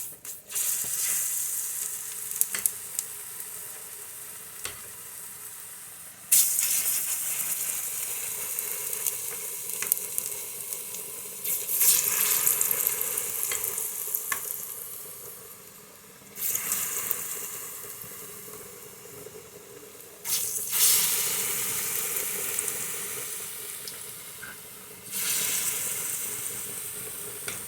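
Kaakro (mashed plantain fritter) batter frying in hot oil with a steady sizzle. The sizzle flares up sharply about every four to five seconds, as fresh portions go into the oil, and fades down slowly between flares.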